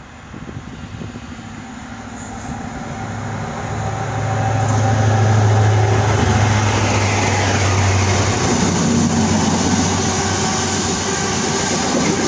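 GWR High Speed Train (InterCity 125) passing close by. The Class 43 diesel power car grows louder on approach and goes past about five to eight seconds in, with a deep engine note and a whine that falls in pitch, followed by the steady rumble of the coaches rolling over the rails.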